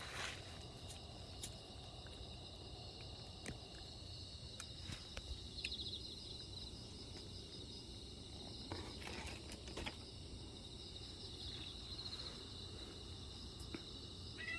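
Insects trilling steadily in a high, pulsing chorus, with scattered faint clicks and taps over it.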